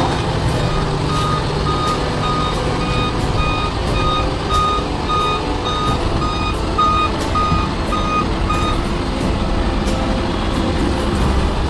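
Truck reversing alarm beeping about twice a second over the rumble of a running engine. The beeping stops about nine seconds in.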